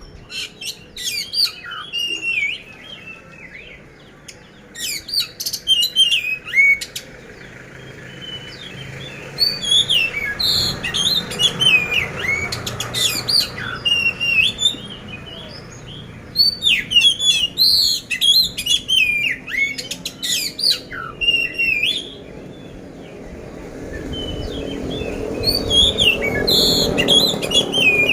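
Oriental magpie-robin (kacer poci) singing loud, fast bouts of varied whistles, glides and harsh rasping notes, five bouts with short pauses between them.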